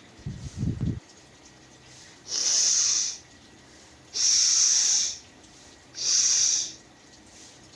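A person blowing a runny, cold-stuffed nose three times, each a hard rush of air lasting under a second, about two seconds apart. A short low muffled noise comes in the first second.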